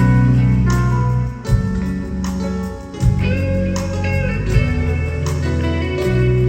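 Band playing an instrumental passage: a plucked guitar melody over long held bass notes, with a steady beat of sharp hits.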